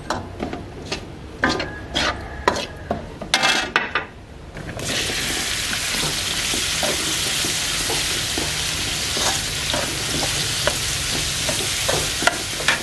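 Metal spatula scraping and clicking against a metal wok. About five seconds in, straw mushrooms go into the hot oil and a steady sizzle starts suddenly, with the spatula scraping as they are stir-fried.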